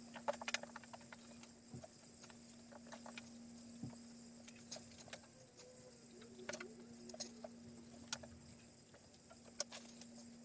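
Scattered light clicks and taps of small household items being handled and put away in a cabinet, over a faint steady hum.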